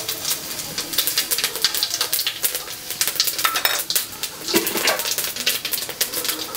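Fennel seeds crackling and sizzling in hot oil in an aluminium kadai, a dense, irregular run of small pops.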